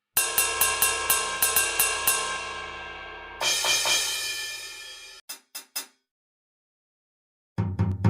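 Drum kit played: a quick run of cymbal strikes, about five a second, then a crash cymbal ringing out that cuts off abruptly. A few short hits follow, then a pause, and kick and drum hits come in near the end.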